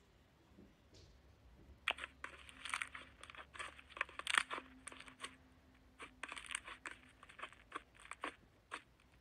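Clear pink glitter slime pressed and squeezed under fingers, crackling with many small, sharp, irregular pops that start about two seconds in and go on in clusters until near the end.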